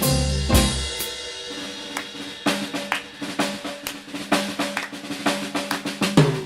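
Live jazz band's rhythm section breaks off about a second in, leaving the drum kit playing alone. The drum solo grows busier with quick snare and bass drum strikes.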